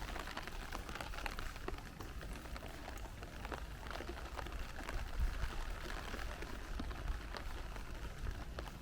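Steady rain falling on a city street, with many small drops ticking close by over a low background rumble.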